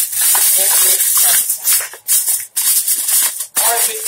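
Aluminium foil crinkling and rustling in irregular handfuls as it is pressed down over a baking pan to cover it.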